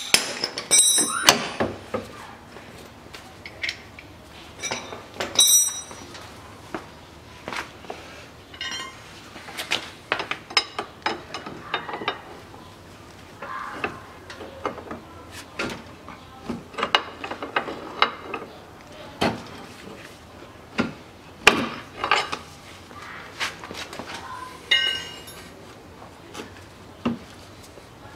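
Irregular metallic clinks and knocks from a steel pry bar and hand tools working on an ATV's front steering knuckle while the lower ball joint is levered out; a few strikes ring briefly.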